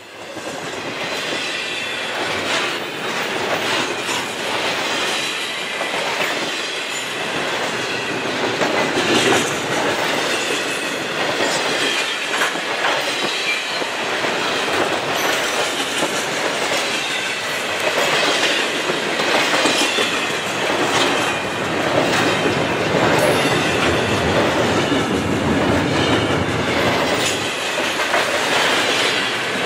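Double-stack intermodal freight train rolling past close by: steady rumble of container well cars with clickety-clack of wheels over rail joints and some wheel squeal.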